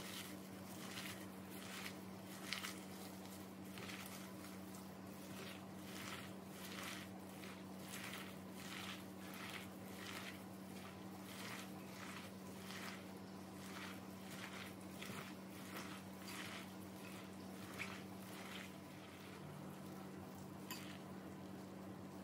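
Wet sliced red onions squished and kneaded by a gloved hand in a glass bowl, a soft squelch repeating steadily about three times every two seconds.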